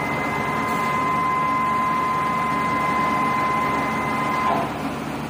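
Heavy-duty CNC lathe running: a steady mechanical hum with a high whine that cuts off about four and a half seconds in.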